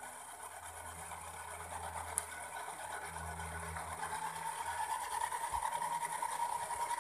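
Small electric motors of a toy RC Chinook helicopter whirring, the whine rising slightly in pitch and getting louder from about halfway through as the second (lower) rotor spins up.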